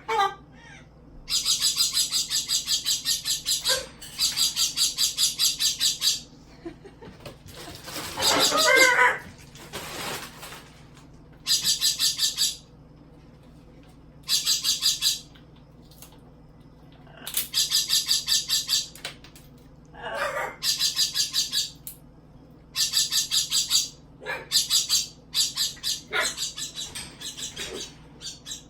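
Pet parrot flapping its wings in short bouts, about ten times, each bout a second or two of rapid, even wingbeats. A wavering squawk comes about eight seconds in and a shorter call about twenty seconds in.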